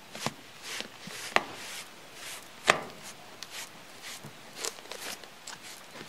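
Pin brush drawn repeatedly through a cat's fur, a short scratchy stroke every half second or so, with sharp crackles of static electricity building up in the fur; two snaps a little over a second apart stand out as the loudest.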